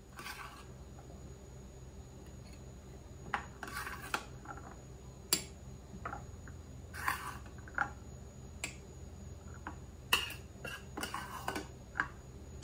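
Metal ladle scooping hot strawberry pudding from a steel pot and pouring it into glass bowls: about a dozen scattered clinks and scrapes of the ladle against the pot and bowls, over a faint steady hum.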